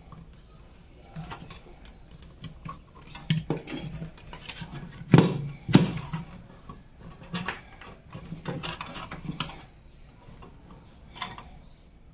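Clicks, clinks and knocks of PC case parts being handled during assembly, an irregular run with two louder knocks about five and six seconds in.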